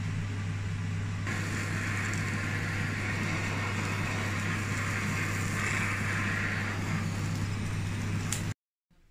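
Handheld kitchen blowtorch flame hissing steadily as it sears the surface of sous-vide ribeye steaks, starting about a second in, over a steady low hum. The sound cuts off abruptly near the end.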